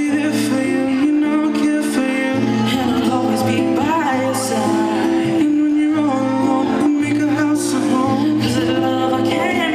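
Live acoustic guitar playing with a singing voice, amplified through a stage PA.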